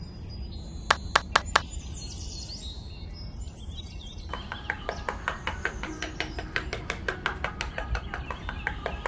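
Birds chirping, thickening into dense rapid chirping from about four seconds in, over a steady low rumble. Four sharp clicks in quick succession come about a second in.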